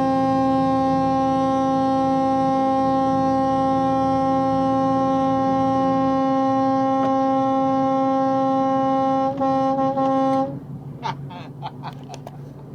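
Air horn sounding one long, steady blast of a single pitch, held for about ten seconds, stuttering briefly twice near the end before it cuts off.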